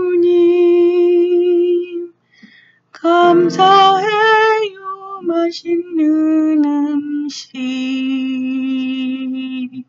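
A woman singing solo in long held notes that step from pitch to pitch, with a short pause about two seconds in.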